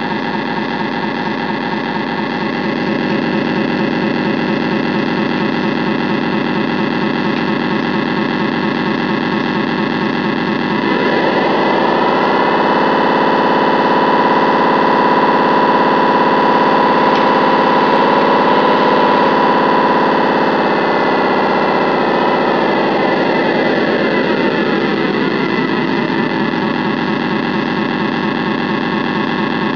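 Electronic diesel-engine sound from an RC model tug's sound module, running steadily at idle. About a third of the way in it revs up and holds at higher revs, then winds back down to idle in the later part, following the throttle.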